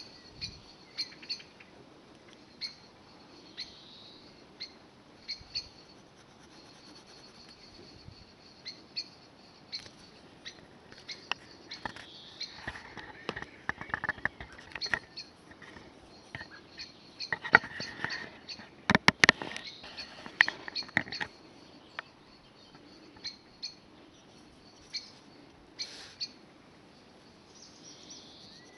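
Small birds chirping over a low background, with scattered sharp clicks and taps that come thickest and loudest about two-thirds of the way through.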